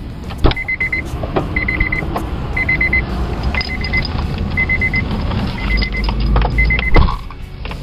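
A Honda car's warning chime beeping in short rapid clusters about once a second while the driver gets into the seat. There is a thump near the start, and a heavy thump about seven seconds in, after which the chime stops.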